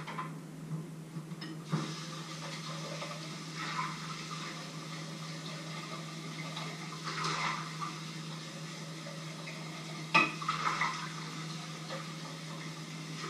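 Washing up at a kitchen sink: tap water running while dishes and cutlery clink and clatter now and then, the loudest knock about ten seconds in. A steady low hum sits underneath.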